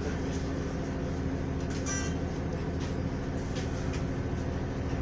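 Steady drone of a city transit bus's engine and drivetrain heard from inside the cabin, with a constant low hum. A brief high-pitched tone sounds about two seconds in.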